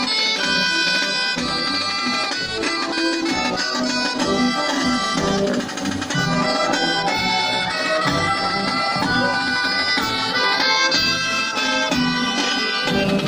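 Traditional dance music for a giants' dance, a bright reedy melody over a steady beat.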